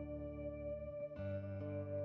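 Background music: soft ambient instrumental with sustained tones, changing chord about a second in.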